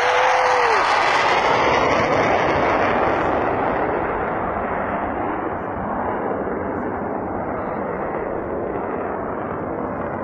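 Military jet flying low past: a loud engine roar that peaks at the start as it passes and then slowly fades away.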